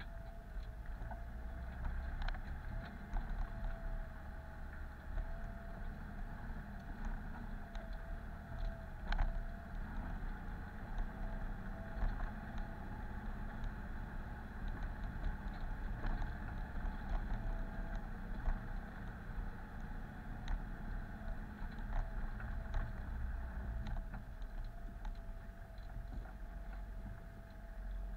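Off-road vehicle heard from inside the cab, crawling downhill over a rutted dirt track: a low engine rumble with a steady whine over it, and irregular knocks and rattles as the body jolts over the ruts.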